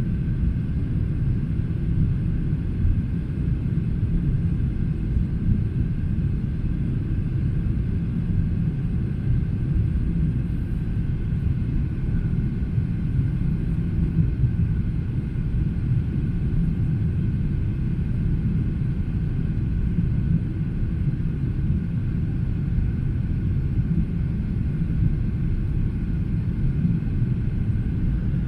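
Steady low rumble inside the cabin of a Boeing 777-300ER: GE90 engine and airflow noise, with a faint steady whine above it and no change throughout.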